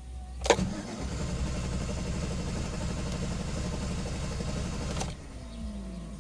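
Starter cranking the 2013 GMC Sierra's 5.3-litre V8 in a hard start, about four and a half seconds of rapid pulsing after a click, then it stops and a faint falling tone trails off.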